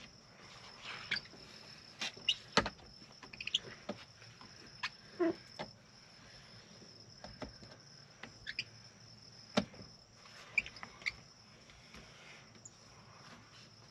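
A steady high trill of crickets, with scattered clicks, taps and short squeaks as wet window-tint film is handled and pressed against the truck's door glass.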